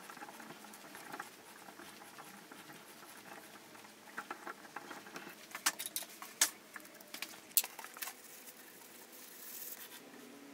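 Hand tap in a tap wrench cutting threads into mounting-stud holes in a steel blank: scattered small scratchy clicks, with a few sharper metallic clicks around the middle.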